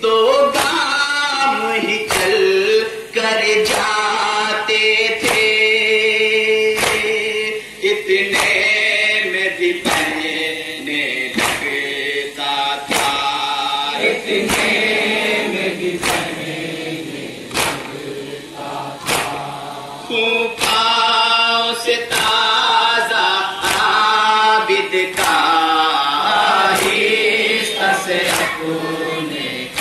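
A group of men chanting an Urdu nauha (Muharram lament) together, with rhythmic matam: open-hand slaps on the chest landing just over once a second, in time with the chant.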